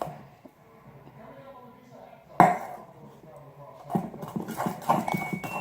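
Glue slime being stirred in a bowl with a utensil: the utensil scrapes and clinks against the bowl, with one sharp knock about two and a half seconds in and busier stirring from about four seconds.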